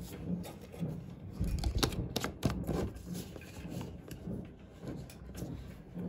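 Plastic laundry-detergent and fabric-softener bottles being handled and set back among other bottles: a scatter of knocks and clicks, loudest about one and a half to two and a half seconds in.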